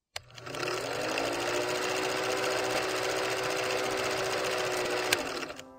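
Film projector running as a sound effect: a rapid, even mechanical clatter over a steady motor hum that comes up about half a second in and fades out near the end, with a single click near the start and another about five seconds in.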